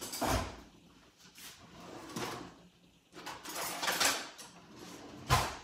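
A kitchen drawer being opened and rummaged through: a series of scrapes and knocks, with a sharp, heavy knock near the end.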